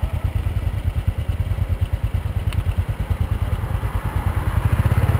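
Small motorcycle engine idling with a steady, fast low pulse that grows a little louder near the end. A single light click about two and a half seconds in.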